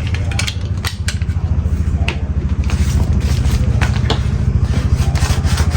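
A steady low engine-like rumble with a fast, even pulse, growing slightly louder partway through, with scattered sharp clicks and scrapes from metal lighters and packaging being handled close by.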